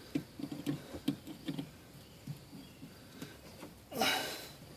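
Light, irregular knocks and clicks, several a second, then a short rustling burst about four seconds in.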